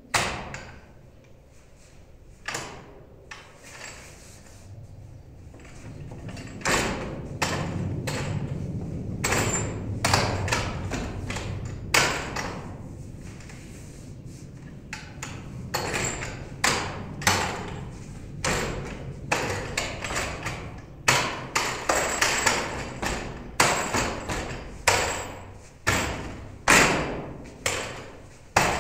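Wing Tsun wooden dummy (mook yan jong) being struck by hands and forearms: a string of sharp, irregular wooden knocks and clacks on its arms and trunk. They are scattered at first, then come quickly, often two or more a second.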